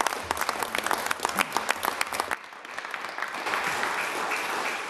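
Applause from members in a debating chamber: many people clapping, dropping to a softer, more even sound a little over two seconds in.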